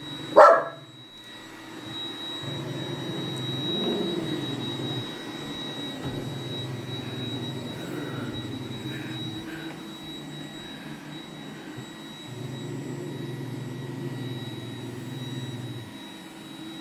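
Roomba robot vacuum running, a steady motor and brush whir that rises and dips as it moves about. One short dog bark sounds just after the start.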